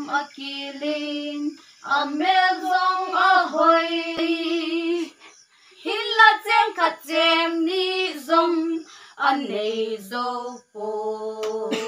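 Women singing a song unaccompanied, in long held notes, phrase after phrase with short pauses between.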